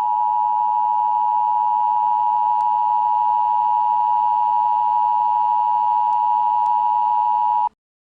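Emergency Alert System attention signal: two steady tones sounding together, held for nearly eight seconds and cut off abruptly near the end.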